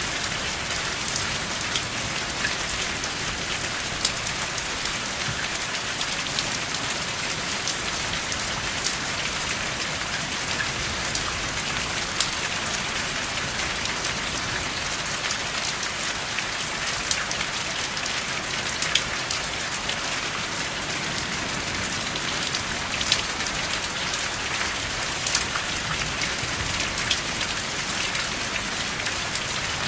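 Steady rain falling, an even hiss with many sharp individual drops ticking through it.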